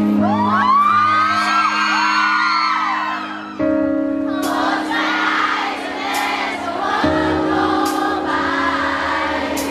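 Instrumental intro of a pop ballad playing over a PA, with sustained keyboard chords that change twice, while a crowd of fans screams and cheers over it, loudest in the first few seconds.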